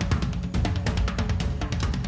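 Background music with a steady drum-kit beat, bass drum and snare over a heavy bass line.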